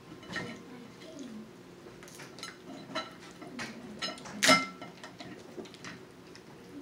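Snow crab leg shells cracking and clicking as they are broken apart and handled, a run of scattered sharp clicks with one loud crack about four and a half seconds in that rings briefly.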